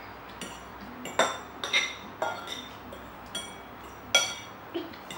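Metal fork clinking against a ceramic bowl while stirring and scooping noodles: about six sharp, ringing clinks, the loudest about a second in and about four seconds in.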